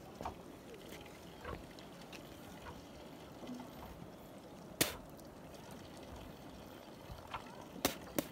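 Faint outdoor ambience: a low, steady rush broken by a few sharp clicks, the loudest about five seconds in and two more near the end.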